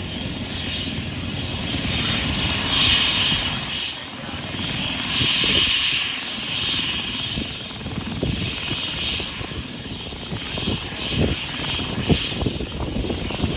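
Medical helicopter running on the ground: a steady turbine whine and rotor rush that swells and eases a couple of times.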